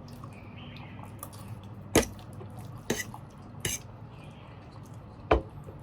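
Eating utensils clinking against a plate while the last of the noodles is scraped up: four short sharp clinks spread over a few seconds.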